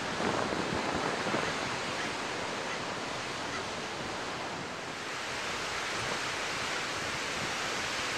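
Ocean surf breaking and washing around coastal rocks: a steady rushing hiss that dips slightly midway.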